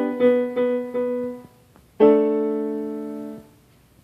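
Piano chords played slowly in a lesson-style chord drill. A chord is struck and repeated three more times in quick succession. About two seconds in, a different chord is struck and held for over a second as it fades.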